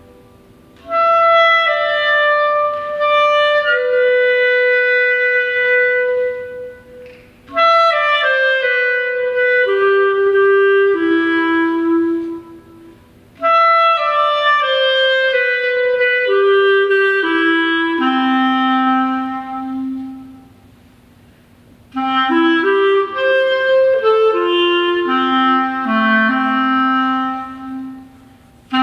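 Unaccompanied clarinet playing a slow melody in four phrases, each starting high and stepping down in pitch, with short breaths between them.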